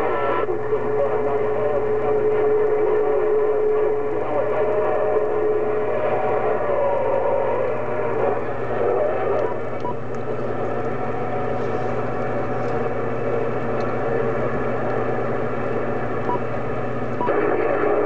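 Static and hiss from the speaker of a Uniden HR2510 radio receiving on the 11-meter CB band, with faint garbled signals in the noise and a steady whistle for the first several seconds. The noise changes about halfway through and again near the end as the channel is switched away and back.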